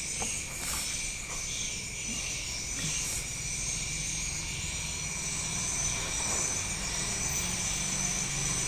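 A steady background hum sits low, and a thin, continuous high-pitched trill runs above it, both holding level throughout.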